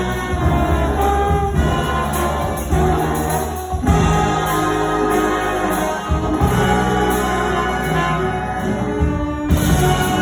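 High school jazz band playing a lively tune, sustained ensemble chords over bass and drums.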